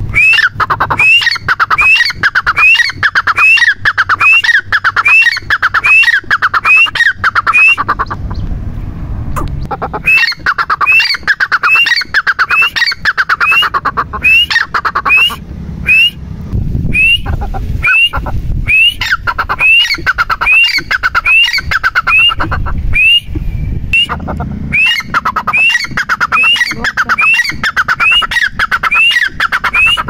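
Grey francolin (teetar) calling: a loud, evenly repeated series of short rising notes, about two a second. The calling pauses for a moment about eight seconds in, then goes on.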